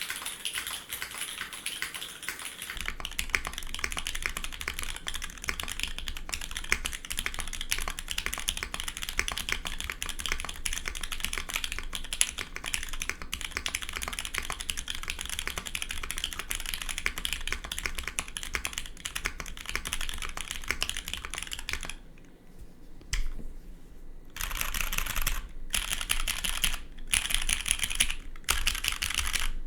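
Steady, fast typing on a custom 65% gasket-mount mechanical keyboard: Cherry MX1A Nixie switches, lubed and filmed, on an aluminium plate under GMK keycaps. The typing almost stops for about two seconds near the end, then comes back in short bursts.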